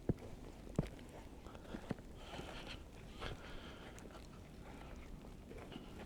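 Footsteps crunching on a snow-covered trail: a few irregular soft footfalls in the first two seconds, then a crunchy shuffle.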